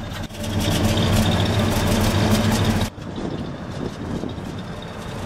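1973 Cadillac Fleetwood Brougham's 472 cubic inch V8 idling steadily. The sound drops abruptly to a lower level about three seconds in.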